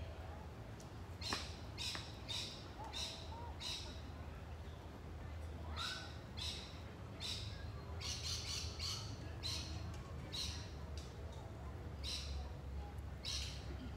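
Birds in the trees giving a long run of short, harsh calls, about one or two a second, over a steady low background hum.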